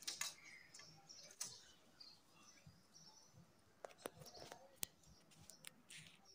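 Near silence: faint room tone with a few sharp little clicks and taps from small clay pieces being handled, most of them around the middle.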